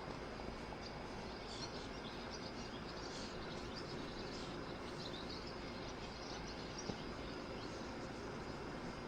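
Steady outdoor background hum with birds chirping in short high calls, most of them in the first two-thirds, and a single small click near the end.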